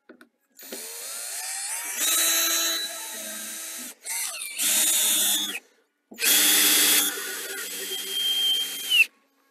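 Drill driving screws into the dock's wood base, running in three bursts with a steady motor whine. The last and longest burst winds down in pitch at the end as the screw snugs up tight.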